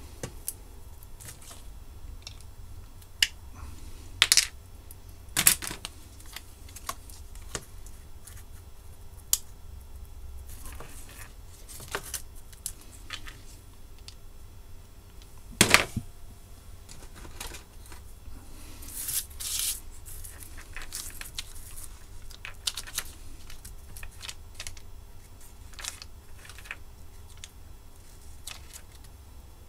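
Small handling noises on a workbench as a boxed two-part adhesive is unpacked: scattered clicks, taps and rustles of cardboard and a plastic blister pack, with a few sharp clicks in the first six seconds, the loudest knock about 16 s in and a burst of rustling around 19–20 s in, over a steady low hum.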